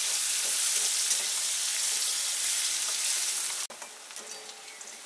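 Chopped onion frying in hot oil in a kadai: a loud, steady sizzle as a spatula stirs it. About three and a half seconds in, the sizzle cuts off abruptly and drops to a much quieter sizzle with a few light scrapes.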